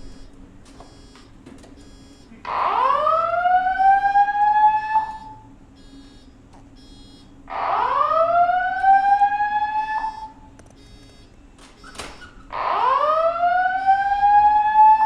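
Building fire alarm sounding its evacuation signal: a whoop tone that rises in pitch for about two and a half seconds. It sounds three times, once every five seconds, with pauses between. This is the signal to leave the building by the stairs.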